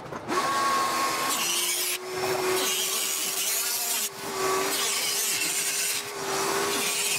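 Handheld rotary tool grinding into a white part in passes of about two seconds, with short breaks between them, over a steady hum from a vacuum hose drawing off the dust.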